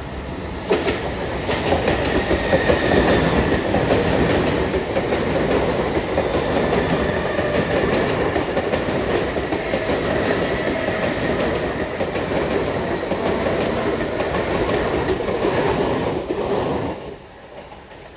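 Mumbai local train running past at speed, its wheels clattering over the rail joints in a dense run of clicks. The sound cuts off suddenly near the end as the last coach goes by.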